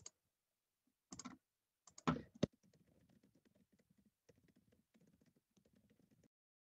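Typing on a computer keyboard, faint: a few separate keystrokes and two louder clicks about two seconds in, then a quick run of keystrokes that stops short near the end.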